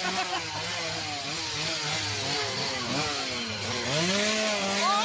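Small engine revving up and down several times over a steady hum, with a hiss.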